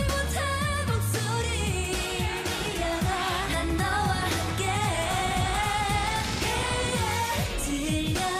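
K-pop girl-group song: female voices singing a melody over a dance-pop backing track with a steady bass and beat.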